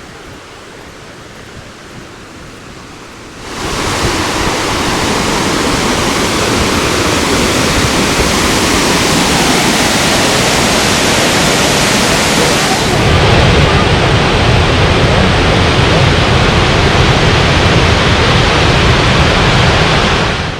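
Veliki slap, the largest waterfall at Plitvice, heard from near its base: a steady loud rush of falling water. It jumps suddenly much louder about three and a half seconds in, and about two thirds of the way through turns deeper, with more low rumble and less hiss.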